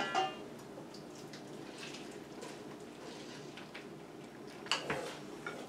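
Hands squeezing the liquid out of grated raw potatoes, the potato water dripping into a stainless steel bowl; faint, with a louder squelch and splash near the end.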